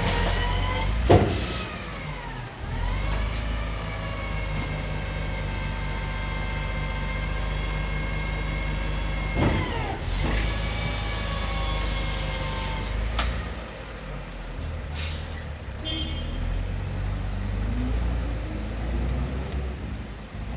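Garbage truck engine running at raised revs while its loading and compacting gear works, with a steady whine that dips and then rises again twice, and a couple of sharp clanks near the start. Later the engine drops back, there are short hisses of air, and its pitch starts climbing near the end.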